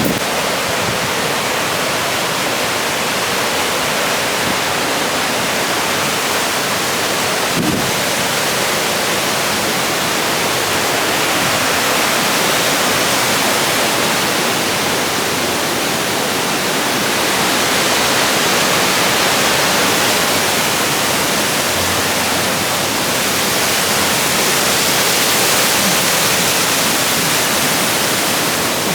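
Loud, steady rush of whitewater on the Cullasaja River and its waterfall, swelling slightly now and then.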